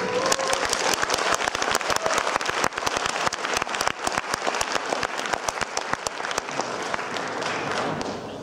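Audience applauding as the violin music ends, a dense patter of clapping that thins out and fades near the end.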